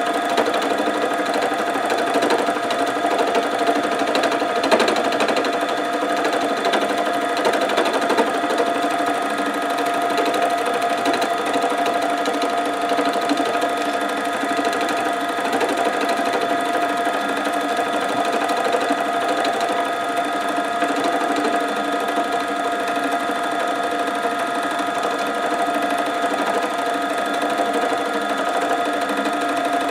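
Simplicity 12-needle Deluxe felting machine running steadily with an even hum, its needles punching wool into a soft backing.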